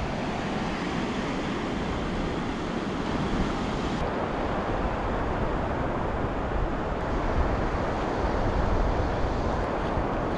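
Surf breaking and washing over a flat sandy beach, a steady rushing noise, with wind on the microphone.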